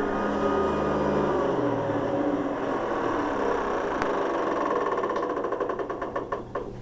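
Hoover Guardsman upright vacuum's motor and brush roll running, then winding down after about a second and a half, its pitch falling. A rhythmic ticking slows and fades near the end as it spins down.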